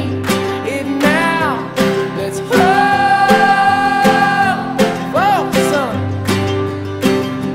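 Background music: a country-style song with strummed acoustic guitar and a held, gliding vocal or lead melody.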